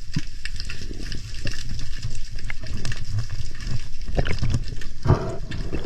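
Water sloshing and gurgling, irregular and rumbling, with scattered small clicks and splashes.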